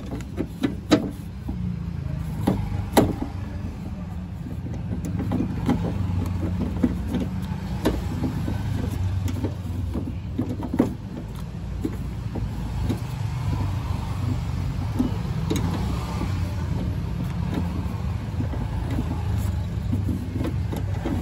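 10 mm socket wrench working on the power-window regulator bolts inside a car door, giving scattered short metal clicks and knocks. A steady low rumble runs underneath.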